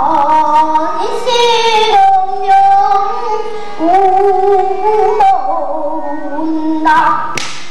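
A young girl singing pansori: long held notes in a strained, full voice that slide slowly between pitches, dipping about two seconds in and rising again near the middle.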